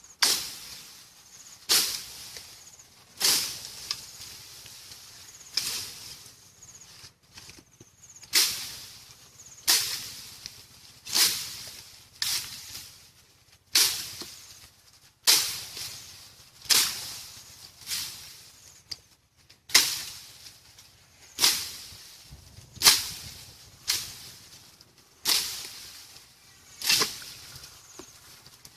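Repeated swishing strokes through leafy bamboo and brush, about one every second and a half. Each is a sharp rustle of leaves that dies away quickly.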